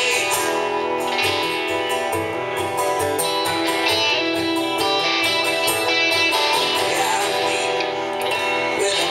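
Live instrumental passage on two guitars: an acoustic guitar strummed while an electric guitar plays along, with no singing.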